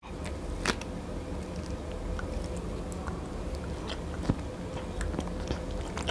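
Close-miked chewing of soft braised pork and rice, with scattered sharp wet mouth clicks.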